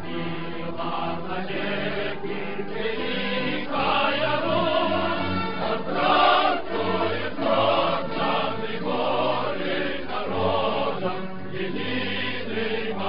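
Choir singing an anthem in long held chords that change about once a second, with a deep bass line.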